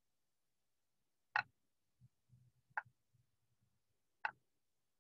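Stylus tip tapping on a tablet's glass screen while handwriting: three faint, sharp clicks about a second and a half apart.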